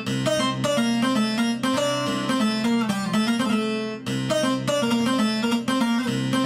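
Sampled Middle Eastern plucked-string instrument from Native Instruments' Discovery Series Middle East library, playing a quick melodic phrase of plucked notes over a steady low note.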